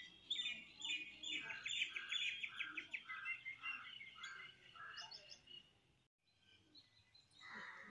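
Birds chirping: a run of repeated high chirps, about two a second, that stops about five seconds in, followed by fainter calls.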